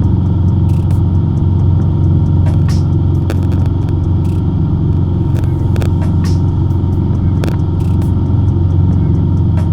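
Cessna 150's four-cylinder piston engine and propeller droning steadily in cruise, heard as a loud, even low hum inside the cabin, with a few faint clicks.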